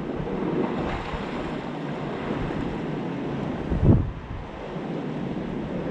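Sea surf washing against a rocky shoreline, with wind buffeting the microphone. There is one brief louder low thump about four seconds in.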